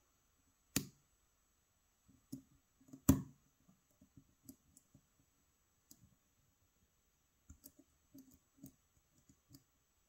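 Light metallic clicks and taps of a hook pick working the pins of a pin-tumbler challenge lock under tension: a sharp click just under a second in, the loudest about three seconds in, and fainter scattered ticks after.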